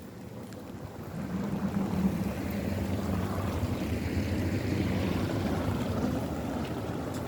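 A vehicle passing on a wet street: tyre hiss and engine hum swell over a few seconds, then slowly ease.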